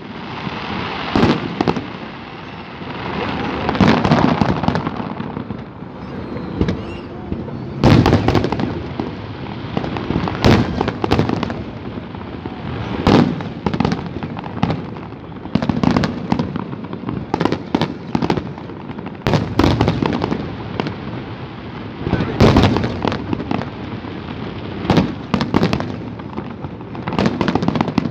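Aerial fireworks display: shells bursting in quick, irregular succession, a steady run of loud bangs with denser volleys around 4, 8, 13 and 22 seconds in.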